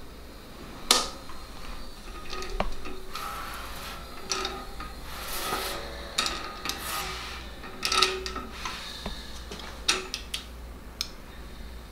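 Irregular clinks, taps and scrapes of metal hand tools and engine parts being handled during engine assembly, with sharp knocks every second or two.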